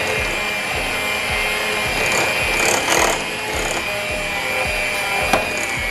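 Electric hand mixer running steadily, its beaters churning confectioner's sugar into softened butter for buttercream, with a steady high-pitched motor whine and a short knock near the end.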